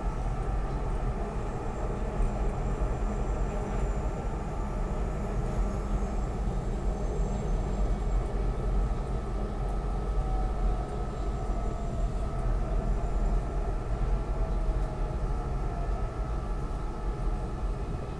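SEPTA Market-Frankford Line el train heard from inside the car as it runs toward 46th Street station: steady rumble of wheels on the rails, with a motor whine that shifts slowly in pitch and faint high squeals through the middle.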